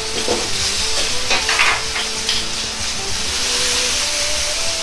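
Chicken thigh frying in its own fat in a wok, a steady sizzle, with a metal spatula scraping and knocking on the wok as the chicken is turned, about a second in and again near two seconds. The sizzle swells near the end as teriyaki sauce is poured into the hot wok.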